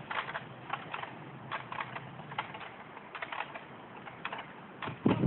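Short bursts of rapid metallic clicking, about one or two bursts a second, as a hand winch's ratchet is worked to pull the poplar over. A louder, lower sound comes right at the end.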